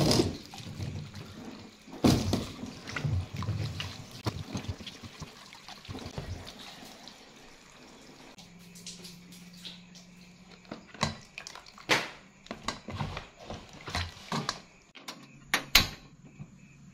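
Water splashing and dripping as chunks of soaked ash gourd are rinsed by hand in a metal basin and dropped into a plastic colander, then water poured over them from a hose. Several sharp knocks come in the second half.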